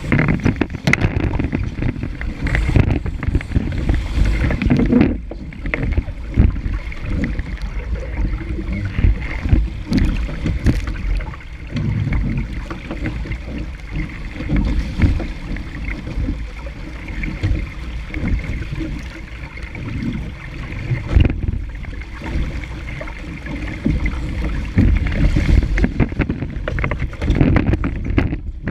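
Wind buffeting a deck-mounted microphone and water rushing and splashing along the hull of a Laser sailing dinghy moving fast through choppy water. The noise comes in uneven gusts, heaviest in the low end.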